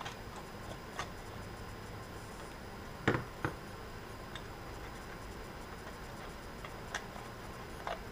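A few faint, scattered clicks as the small centre screw that holds a loudspeaker's spider to its cone is turned out by hand, with a louder double click about three seconds in.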